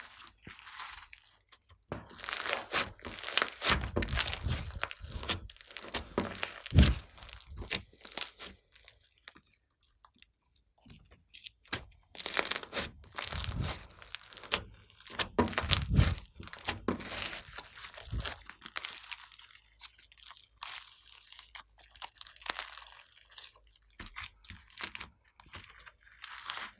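Slime being kneaded, pressed and stretched by hand, giving dense crackling and popping in two long bouts, then lighter handling near the end.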